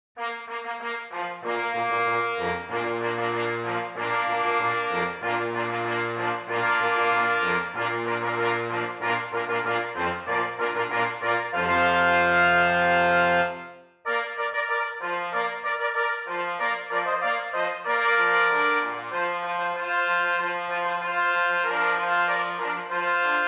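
Background music played on brass instruments in a steady, stately tune. About midway a phrase ends on a long held chord that fades out, and after a brief gap a new phrase begins.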